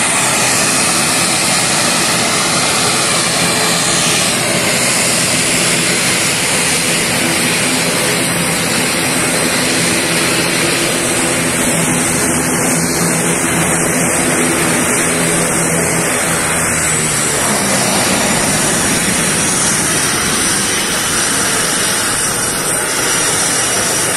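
ATR-72's twin turboprop engines and propellers running as the aircraft taxis: a loud, steady rushing whine with a low drone under it. The drone fades about two-thirds of the way through, leaving the rush.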